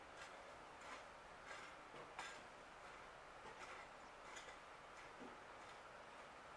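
Near silence, with faint, irregular clicks about once a second over a low hiss.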